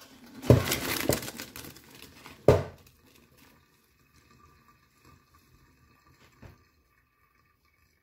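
Pot of boiled rice and its hot cooking water tipped into a plastic colander in a sink: a rush of splashing, draining water with knocks from the pot, loudest in the first three seconds. After that come a few faint ticks and drips as the rice drains.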